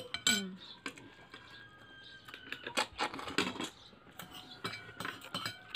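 Metal spoons clinking and tapping against a glass plate and dishes: a run of small irregular clicks, some ringing briefly.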